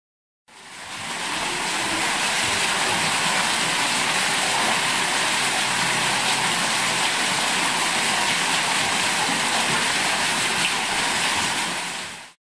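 Water pouring from an artificial waterfall into a pool, a steady splashing rush that fades in about half a second in and stops near the end.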